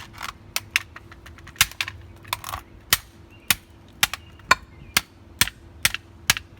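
A plastic TV remote control being struck hard over and over, about a dozen sharp clacking blows at roughly two a second, as it is being smashed apart.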